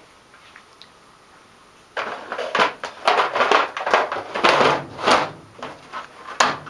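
Handling noises: irregular clattering and knocks, starting about two seconds in, after a short quiet spell.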